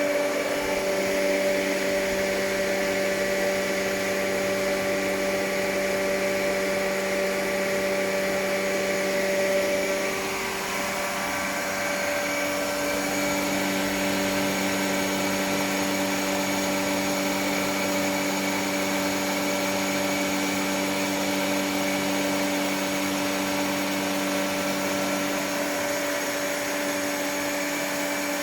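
BOGE C7 LDR 5 kW direct-drive screw air compressor running: a steady motor hum with several steady tones. About ten seconds in the tones shift and the level dips briefly, then the running goes on evenly.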